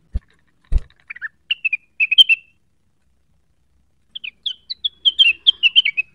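Rengganis songbird singing in two bursts of quick, high chattering notes, the first about a second in and the second from about four seconds. Two short low thumps come just before the first burst.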